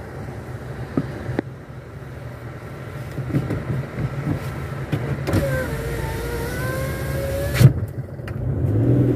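A car's electric window motor whirring for about two seconds, starting a little past the middle, then stopping with a clunk, over the low hum of the car.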